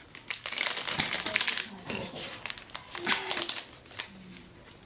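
Plastic packing wrap crinkling as it is handled and pulled off a new phone, dense crackling for about two seconds, then sparser and quieter crackles.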